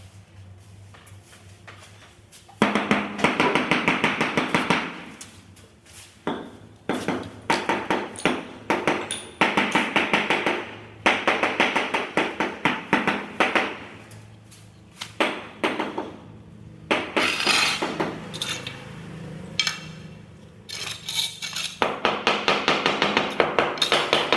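Hard ceramic tiles being tapped and clinked during tile-laying work: quick runs of sharp knocks in bursts of a few seconds, with short pauses between them.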